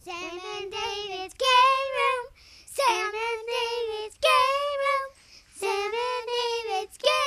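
A child singing, in about six short phrases of held, gliding notes with brief breaks between them.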